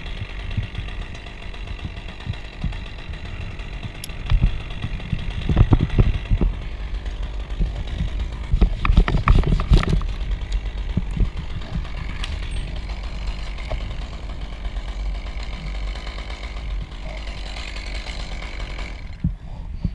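Hand pruning saw cutting through a small beech stem in quick back-and-forth strokes, in two spells about four and nine seconds in, over a low rumble. A chainsaw runs steadily in the background.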